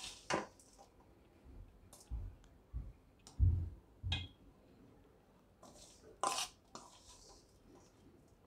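A spoon clicking and clinking against the dishes as dry pickle masala is spooned into a glass jar, with a few soft thuds in between; the loudest is a dull thump about three and a half seconds in.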